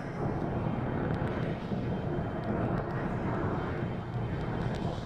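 A steady low rumble with a few faint crackles over it.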